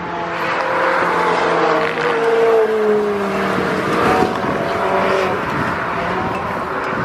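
Ferrari V8 sports car driving past at speed on a race track. The engine note drops in pitch as it goes by, about two to three seconds in.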